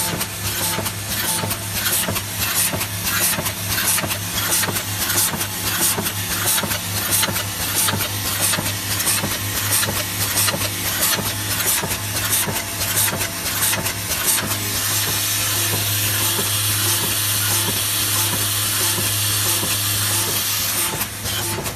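Automatic thumbtack assembly machine running: a steady hum from its vibratory bowl feeders under a dense rattle of steel pins and round caps and rapid clicking of the mechanism. About fifteen seconds in the clicking thins into a steadier hiss.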